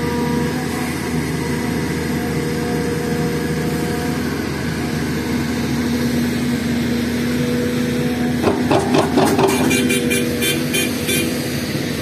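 Diesel engine of an SDLG hydraulic excavator running steadily under load while it digs and swings a bucket of soil over a dump truck. About three-quarters of the way in comes a quick run of clattering knocks lasting a few seconds.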